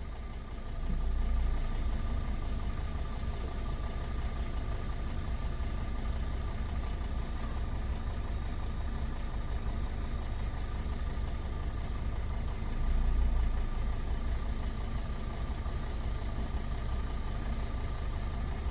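2016 Honda Civic engine idling steadily, with a low rumble that swells briefly about a second in and again around thirteen seconds in.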